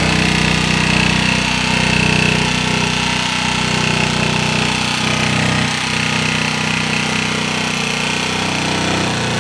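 Electric foam-cutting knife buzzing steadily as its reciprocating blade saws through a thick slab of medium-density upholstery foam, cutting a cushion to size.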